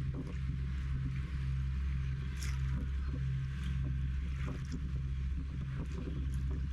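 A fishing boat's engine running steadily with a low hum, with scattered light knocks and splashes of water.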